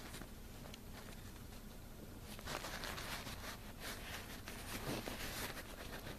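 Quiet handling noise: soft rustling and rubbing as fingers turn a small ring, with a few louder rustles in the middle seconds, over a low steady hum.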